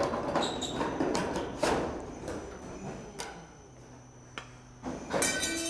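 Aviation snips cutting thin Colorbond steel flashing: a run of crunching snips and clicks over the first couple of seconds. Near the end a sharper knock, and the sheet steel rings.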